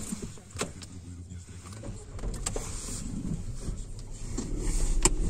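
Car pulling away out of the wash bay, heard from inside the cabin: a low rumble grows louder from about two seconds in, with a few sharp clicks along the way.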